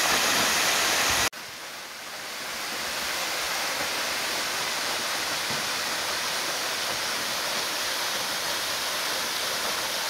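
Tall, narrow waterfall pouring into a plunge pool with a steady rush of falling water. About a second in the sound breaks off abruptly and comes back softer, swelling to a steady rush again over the next two seconds.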